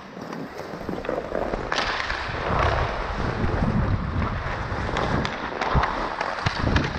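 Ice skate blades scraping and carving the ice during fast skating, with wind buffeting the helmet-mounted microphone and a few sharp clicks.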